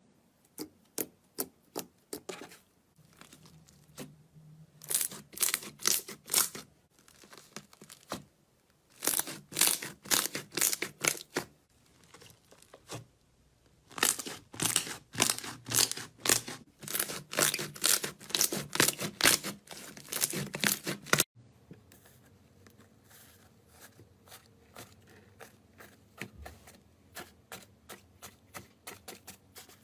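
Slime being pressed and squeezed by hand, giving runs of sharp crackling pops, several a second. About two-thirds of the way through the sound changes abruptly to fainter, softer popping.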